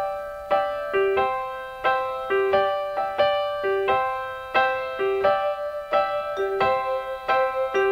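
Background music: a solo piano passage of single notes and chords, each struck and then fading, about two a second.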